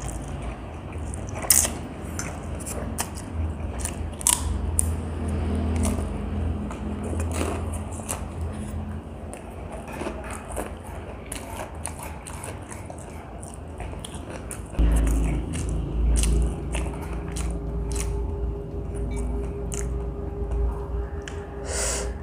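Close-miked eating sounds: chewing and biting, with sharp crisp crunches now and then. A louder low rumble comes in about two-thirds of the way through.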